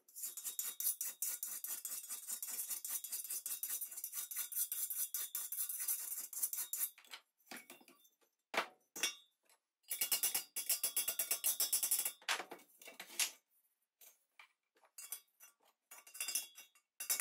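Rapid light hammer taps on the dented metal body of a Tilley FL6 lamp, knocking out dents against a dolly, with a faint metallic ring. The taps come in quick runs for the first several seconds and again a little past the middle, with a few single taps and short pauses in between.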